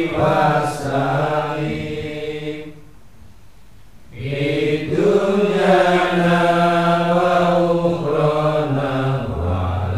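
A group of men chanting together in long, sustained lines in a devotional recitation, with a pause about three seconds in before the chant resumes.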